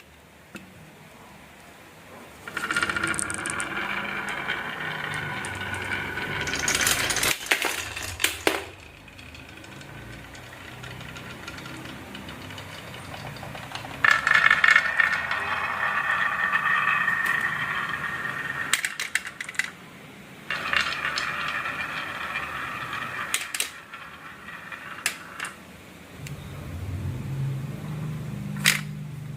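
Marbles rolling and rattling down a wooden marble run, in several long runs of rolling noise broken by sharp clicks as they knock against the track and each other, with a lower rumble near the end.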